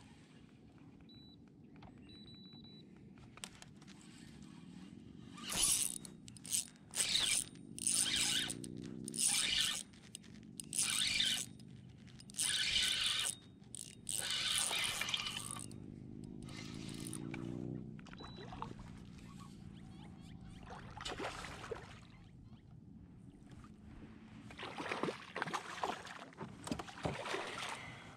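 A bass being fought on light spinning tackle from a kayak: repeated loud, short bursts of fishing-reel noise from about six to eighteen seconds in. Near the end there are short splashy sounds of water as the fish comes alongside.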